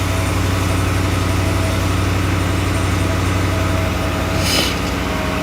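Steady low hum of a vehicle engine running at idle, with a short hiss about four and a half seconds in.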